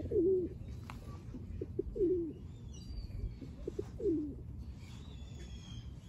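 Feral pigeon cooing: three low coos about two seconds apart, with faint chirping of small birds between them.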